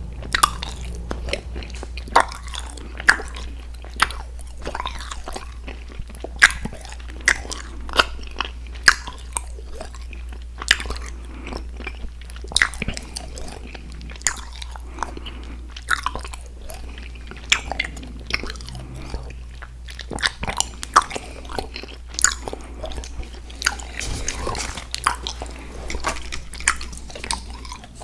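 Close-miked chewing and biting of chewy candy: many irregular sharp mouth clicks, several a second, over a steady low hum.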